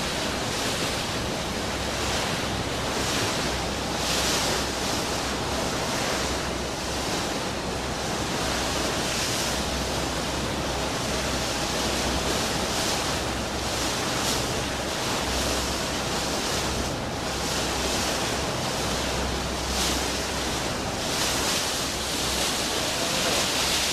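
Steady rush of wind and sea water around a motorboat at sea, with wind buffeting the microphone and a faint steady hum underneath.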